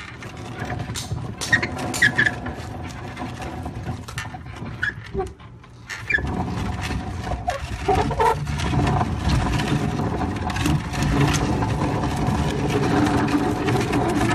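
Amish buggy turning tightly behind a horse, the metal of a wheel rubbing and squealing against the small roller that keeps the buggy from overturning, the noise of a buggy that is not a cut-under. There is a brief lull about five seconds in, then the noise is louder.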